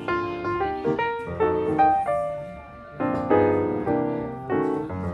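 Background piano music: a series of struck notes and chords, each ringing and fading before the next.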